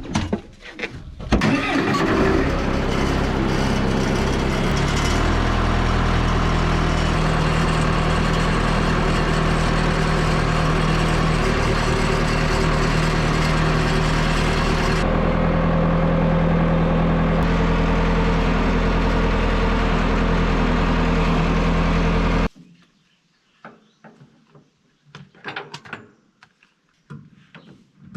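A vehicle engine starts and runs steadily, its pitch shifting a couple of times, then cuts off abruptly about 22 seconds in; a few faint knocks follow.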